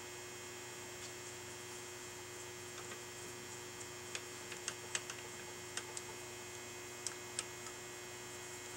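A scatter of light metallic clicks and ticks as a steel M8 bolt is threaded by hand into a split nut held in a lathe's three-jaw chuck and a hex key is fitted to it, over a steady electrical hum.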